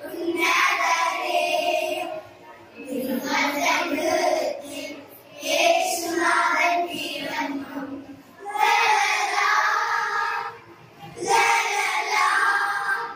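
A children's choir singing a Christmas carol into microphones, amplified through a PA speaker, in phrases of two to three seconds with short breaks between them.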